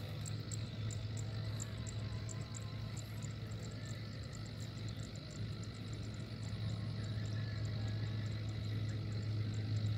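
A steady low engine hum with an insect chirping in even, quick pulses high above it, a few times a second.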